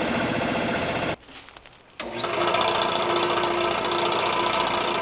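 Electric air compressor pump running with a fast, even mechanical chatter. It stops about a second in, then a compressor starts again about a second later with a steady motor hum and keeps running.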